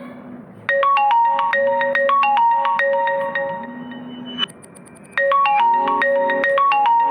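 Vivo phone ringtone: a bright, quick marimba-style melody played twice, starting about a second in and again about five seconds in, with soft low notes in between.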